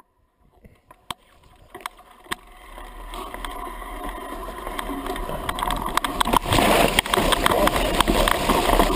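A vehicle riding down a rough dirt track into a shallow stream ford. Knocks and rattles sound over a rush of noise that swells from almost nothing and gets loud about six and a half seconds in, as the wheels reach the water.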